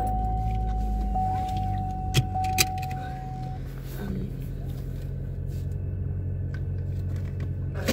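Car engine running, heard from inside the cabin as a steady low hum that shifts in pitch about three seconds in. A steady high tone sounds for the first three and a half seconds, and a couple of sharp clicks come a little after two seconds.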